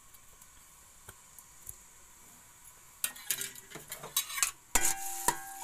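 A metal spatula scraping and clinking against a steel pot, stirring garlic paste in hot oil, starting about three seconds in after a quiet stretch. The pot rings briefly with some of the strikes.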